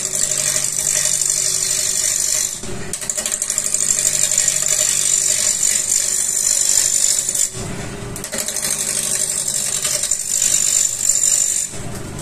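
A hand-held turning tool cuts a long laminated hardwood spindle spinning on a wood lathe, giving a steady hiss of shavings being peeled off. The hiss comes in three long passes, breaking off briefly twice as the tool eases off, over the lathe's steady hum.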